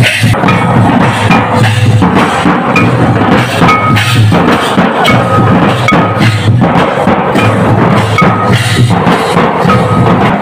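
Folk percussion ensemble playing loud, driving rhythm: large double-headed drums beaten with sticks, with a hand-held brass gong struck by a stick giving short ringing notes over and over, and small hand cymbals clashing.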